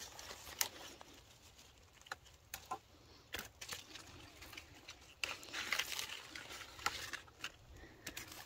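Rustling of tomato plant leaves and stems, with scattered small snaps and clicks, as ripe tomatoes are searched for and picked by hand; the rustling is busiest about five to six seconds in.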